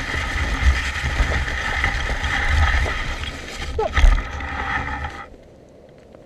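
Steady rushing travel noise of a dog-drawn rig moving fast along a trail, with a low rumble and a loud knock about four seconds in. The noise cuts off abruptly just after five seconds, leaving a faint hiss.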